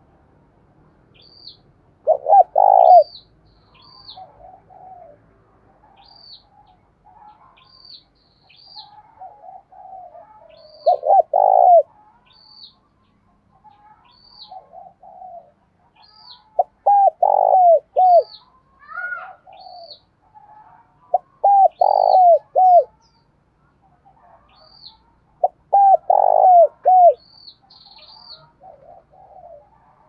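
Spotted dove cooing: five loud phrases of three or four low, downward-curving coos each, a few seconds apart, with softer coos in between. Short, faint, high chirps repeat about every second and a half.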